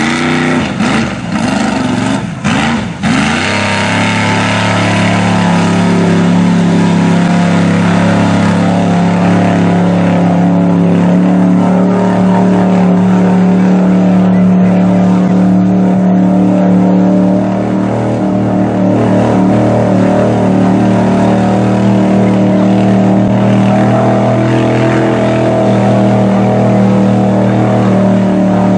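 Lifted mud truck's engine revving hard, its pitch swinging up and down for the first few seconds, then held at steady high revs under heavy load as the truck churns through deep mud.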